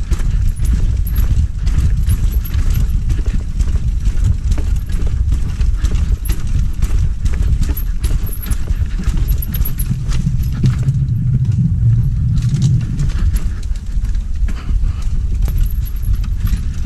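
Mountain bike rattling and clattering at speed over a rough, rutted dirt trail, a fast run of knocks and clicks from the frame, chain and tyres over a heavy low rumble of wind on the microphone. A brief low hum rises near the middle.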